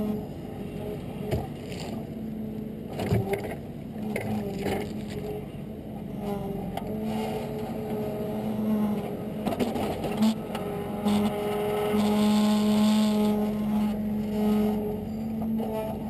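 A machine's engine running steadily, with several short knocks, the loudest about three seconds in.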